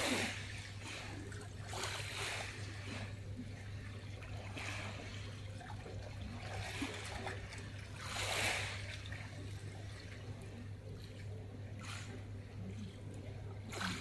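Small waves lapping gently on a pebble shore, a soft wash every two seconds or so, the biggest about eight seconds in.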